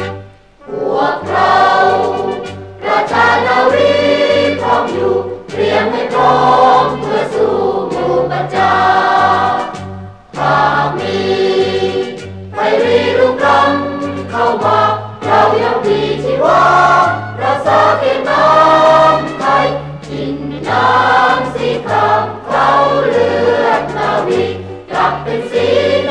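Mixed male and female chorus singing a Thai patriotic song, backed by a Thai military dance band with a steady bass line.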